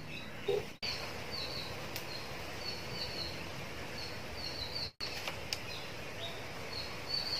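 A small bird chirping over and over, short high chirps every half second or so, over a steady background hiss. The sound cuts out completely for a moment about a second in and again about five seconds in.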